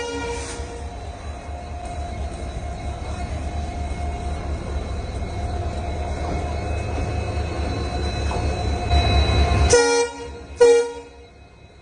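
Steady low rumble of a moving vehicle that stops near the end, with two short horn blasts.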